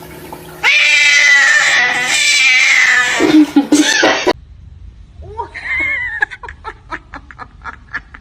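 Cat caterwauling: one loud, long, wavering yowl lasting about three and a half seconds that cuts off suddenly, then a quieter run of short, quick cries.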